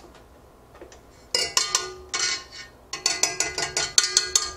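A stand mixer's wire whisk attachment clinking and rattling against the stainless steel mixing bowl as it is worked off the mixer. The ringing metal taps start about a second in, break briefly, then come in a quick run.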